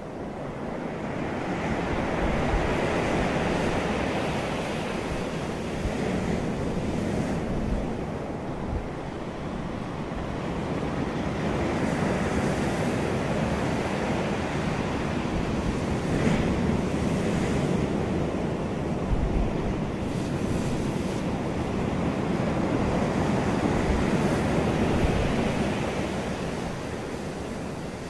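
Ocean surf breaking and washing up a beach, a steady rushing noise that swells and ebbs in three long surges about ten seconds apart.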